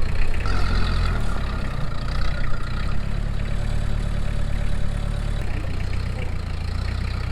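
Engine idling steadily, a deep low drone.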